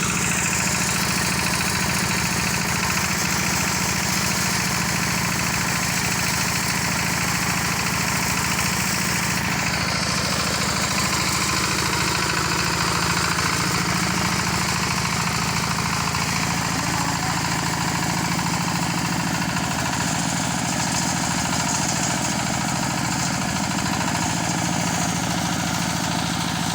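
Rice harvester's engine running steadily at an even level throughout, with no change in speed.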